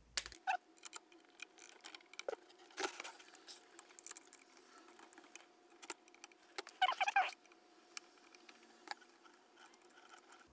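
Small metal clicks and taps of a steel screwdriver tip probing and prying inside a cut-open Sargent & Greenleaf 8088 combination padlock. A brief louder metallic scraping rattle comes about seven seconds in.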